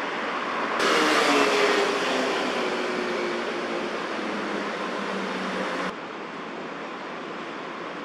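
Steady city traffic noise. About a second in, a louder passing vehicle rises over it, its engine tone falling slowly in pitch, and the sound cuts off abruptly near six seconds.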